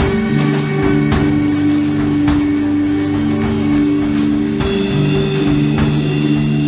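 Live band playing: long held low notes that shift every second or two, with drum hits and guitar.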